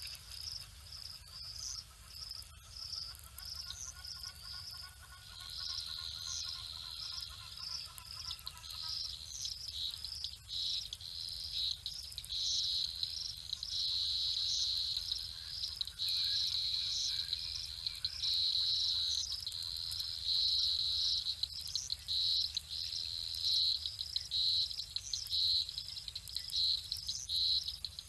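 Insect chorus of crickets chirping in fast pulsing trills, joined about five seconds in by a steadier, louder high trill. A faint drawn-out call sounds in the background for several seconds near the start.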